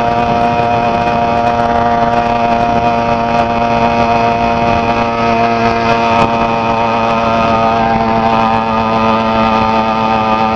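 80cc two-stroke bicycle engine kit running steadily under way, holding a fairly constant note that wavers slightly in pitch in the second half.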